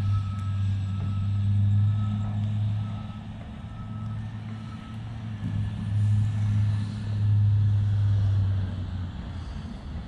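Cat 950H wheel loader's diesel engine running with a steady low drone that swells and eases as it pushes snow. A backup alarm beeps about one and a half times a second through the first half and then stops.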